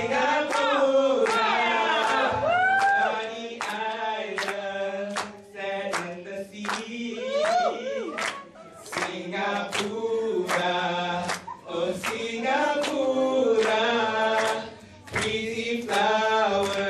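Two men singing together into handheld microphones, their voices carried over a PA, in sung phrases with short breaks between them.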